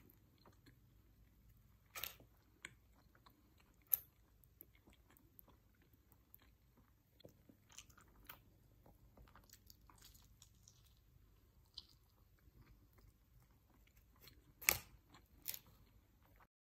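Faint close-up sounds of a person chewing and biting pizza, with a few sharp clicks scattered through, the loudest near the end.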